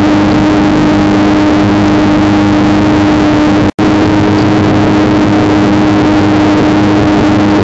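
Hybrid remote-controlled mower running at a steady speed: a loud, even engine drone with a constant hum. The sound cuts out for an instant about halfway through.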